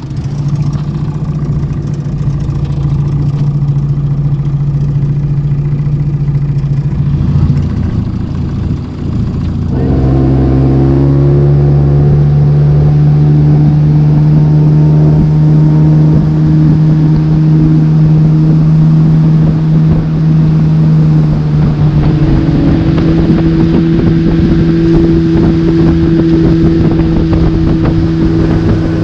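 Motorboat engine running at low speed, then opened up about ten seconds in to a louder, steady cruising speed; its pitch steps up a little again about two-thirds of the way through.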